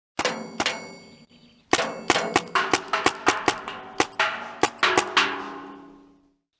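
Paintball shots with a ringing, metallic clang after each. There is one shot just after the start, then from nearly two seconds in a rapid string of about four shots a second. The ringing fades out after the last shot.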